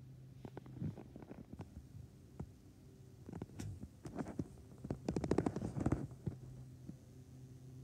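Handling noise as a phone camera is carried: scattered clicks and knocks, with a loud rapid rattle of clicks about five seconds in, over a steady low hum.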